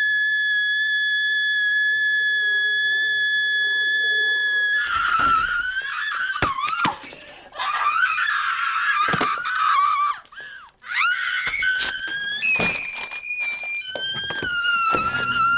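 A young woman's loud, shrill scream, held on one high pitch for about five seconds, followed by more wavering, strained cries broken by several sharp knocks.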